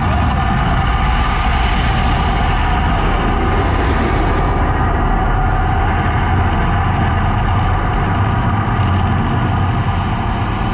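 Mirage volcano show erupting: a loud, deep, steady rumble with a rushing hiss from the gas fire bursts, which cuts off about four and a half seconds in as the flames die, leaving the rumble.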